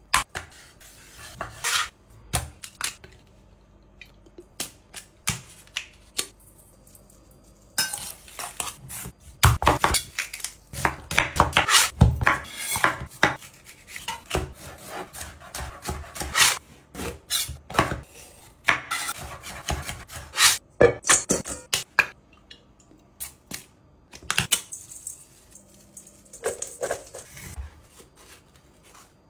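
Kitchen knife cutting chicken breast, bell pepper and avocado on a wooden cutting board: many irregular knocks and taps of the blade on the board, thickest in the middle.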